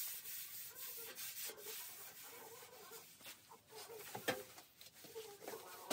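Hand sanding of a vintage VW Beetle's steel decklid, a faint rasping rub in repeated back-and-forth strokes with a light squeak. A single sharp knock comes a little past four seconds in.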